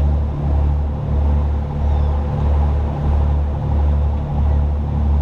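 Low, steady rumble of the sportfishing boat's engine, throbbing evenly about one and a half times a second, with a faint steady hum over it.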